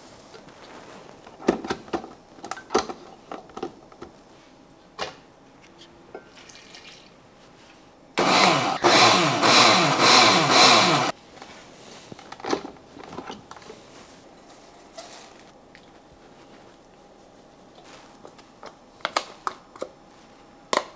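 Countertop blender runs for about three seconds, starting about eight seconds in, grinding roughly chopped onion into a pulp. Scattered knocks and clicks come before and after it.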